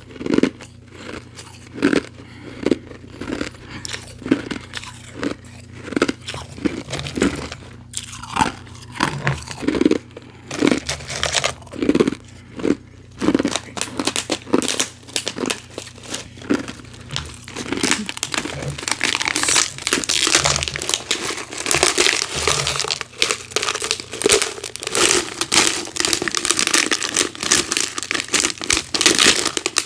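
Ice being chewed, with regular crisp crunches about every half second. About halfway through this gives way to a thin plastic water bottle crinkling and crackling continuously as it is squeezed and twisted to break out the frozen ice inside it.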